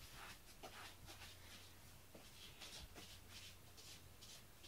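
Near silence: a faint steady room hum with a scatter of soft, brief rustles.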